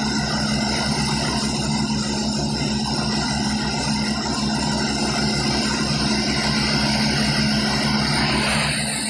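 Diesel machinery running steadily, a blue Powertrac tractor coupled to a trailer-mounted air compressor, with a regular low throb and a steady whine.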